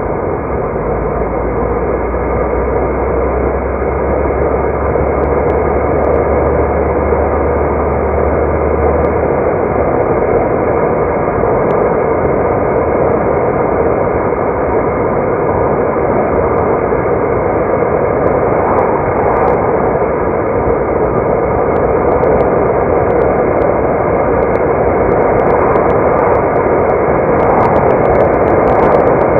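Car driving along a road: a steady rush of tyre and road noise, with a low hum during roughly the first nine seconds.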